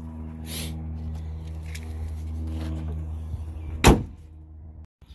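A steady low hum with several even tones fades out about three seconds in. Then comes one loud, sharp slam from shutting the car, just before the ignition is tried.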